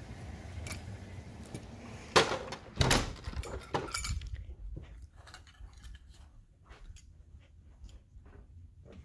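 Steady rain hiss, then two sharp knocks about two and three seconds in as a door is worked. About four seconds in the door shuts and the rain cuts off abruptly, leaving quiet indoor footsteps and handling noises.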